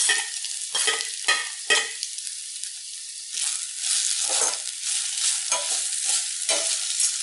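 Grated amla, onions and green chillies frying in oil in a stainless steel kadai: a steady sizzle, with a utensil scraping and stirring against the steel pan in repeated strokes, busier in the second half.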